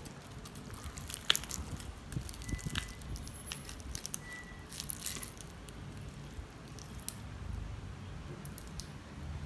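A metal spoon clicking and scraping against a metal serving plate as fried fish is broken apart, with a couple of short ringing clinks, over a faint low hum.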